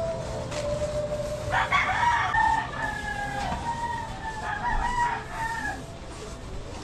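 A rooster crowing: one long call that starts with a loud onset about a second and a half in and holds for about four seconds before dying away.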